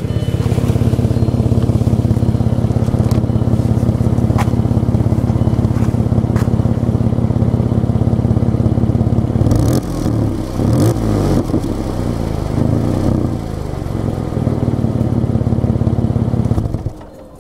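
2001 Audi A4's 2.8-litre V6 running with a loping, uneven pulsing beat that sounds like a Harley-Davidson. About ten seconds in the beat gets less even and the pitch rises and falls, and near the end the sound drops away sharply.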